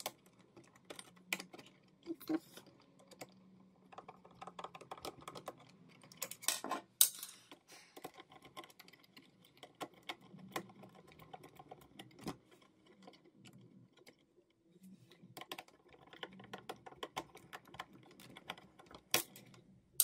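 Hand screwdriver unscrewing the screws on the plastic underside of a Roomba robot vacuum: small, irregular clicks and taps, with a few louder knocks about 7 seconds in and again near the end.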